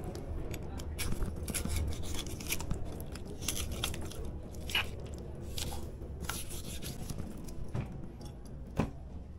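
Knife slicing and scraping through raw pork around the bone, making scattered sharp clicks and scrapes as the meat is cut away, over a steady low hum.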